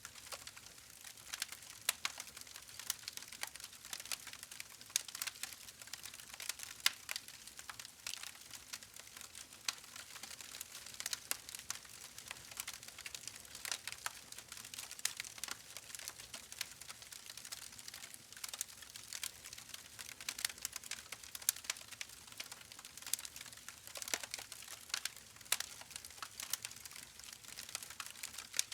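Campfire burning steadily, with continuous irregular crackling and small sharp pops of burning wood over a soft hiss.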